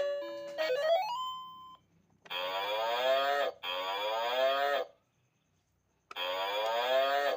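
Three long drawn-out animal calls, each about a second long and sagging in pitch at the end, the last after a second of silence. They are preceded by the end of a short electronic jingle of stepping notes that glides upward.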